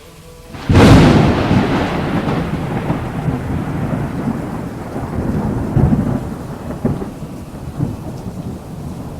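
A thunderclap: a sudden loud crack about a second in, then a long rolling rumble with a rain-like hiss and a few smaller swells of rumble later on.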